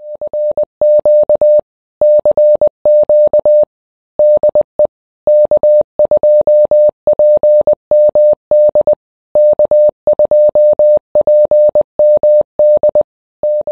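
Morse code (CW) tone: a single mid-pitched beep keyed on and off in quick dots and dashes, with short pauses between letters and words.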